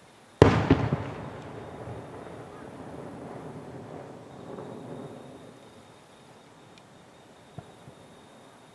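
Aerial firework shell bursting with one sharp, loud bang about half a second in and two smaller bangs just after it, then a long rolling echo that fades away over several seconds.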